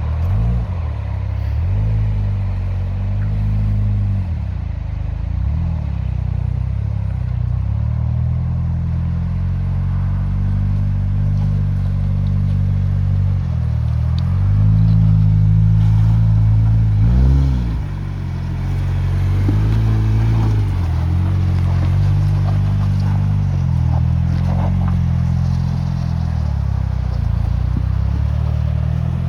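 Engine of a prototype off-road trial vehicle running under load, its pitch rising and falling repeatedly with the throttle, with a sharp rev and drop about two-thirds of the way through.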